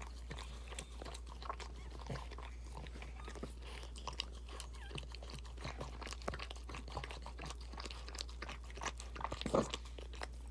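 Boston Terrier mother licking and mouthing her newborn puppy: irregular small clicks and smacks, with a louder cluster shortly before the end.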